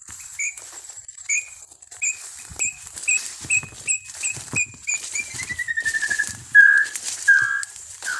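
Nambu pé-vermelho (a small tinamou) call: a series of short whistled notes that speed up and fall in pitch into a quick trill, followed by slower, louder whistles. Footsteps rustle through leafy undergrowth underneath.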